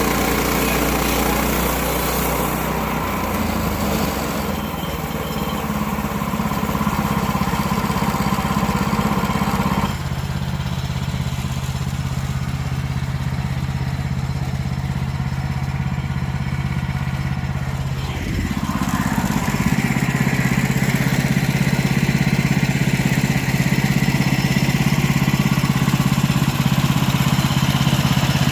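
Small gasoline engine of a portable band sawmill running steadily throughout. Its sound changes abruptly about ten seconds in, and again around eighteen to nineteen seconds in, after which it grows slightly louder.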